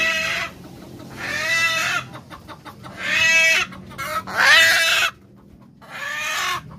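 A caught chicken squawking loudly: five harsh calls about a second and a half apart, each rising and then falling in pitch.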